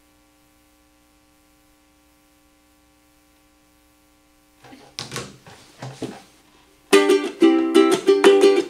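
Ukulele strummed in a quick, even rhythm, starting about seven seconds in. Before it, a faint steady hum and a couple of brief noises.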